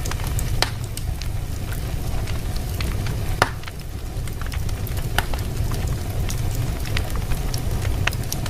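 Fire in a fireplace crackling, with scattered sharp pops over a steady low rumble; one louder pop about three and a half seconds in.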